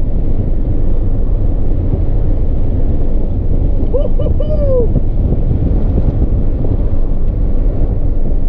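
Car at speed on a race circuit, heard from inside the cabin: a steady, loud rumble of engine, tyres and wind. About four seconds in, three short pitched notes with gliding pitch come through.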